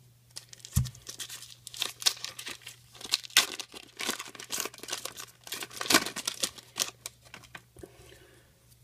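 The foil wrapper of a 2002 Bench Warmer Series 1 trading-card pack being torn open and crinkled by hand: a run of crackling tears, with a soft thump about a second in.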